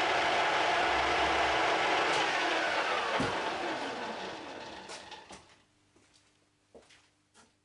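Metal lathe running with its four-jaw chuck spinning, then switched off and spinning down: its whine falls in pitch and dies away, and the chuck comes to a stop about five seconds in. A few light clicks follow.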